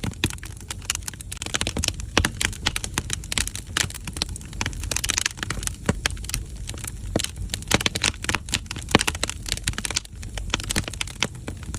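Firewood burning in a traditional Korean agungi firebox, crackling and popping irregularly over a steady low rumble of the fire.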